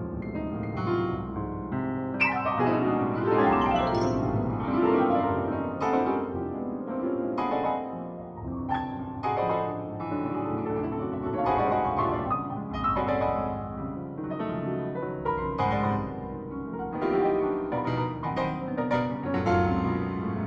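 Piano music: a busy melody of struck notes in quick succession over sustained lower notes.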